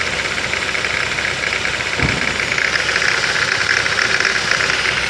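Ford Focus 2.0 Duratec engine idling in reverse with a steady, fast metallic rattle, like a slapping timing chain, that appears only with a gear engaged and the engine under load. Removing the accessory belt makes the noise stop, which points to the belt drive, with the tensioner suspected. There is a single low thump about two seconds in.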